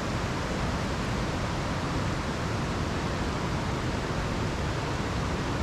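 Waterfall rushing heavily, swollen by a night of heavy rain: a steady, even rush of water.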